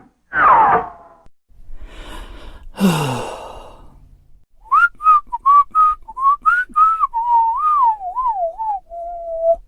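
A person whistling a short tune: a run of quick notes at about the same pitch, then wavering, sliding notes, ending on a held lower note. Before it come two brief comic sound effects: a falling 'poing' tone, then a breathy noisy stretch with a low falling slide.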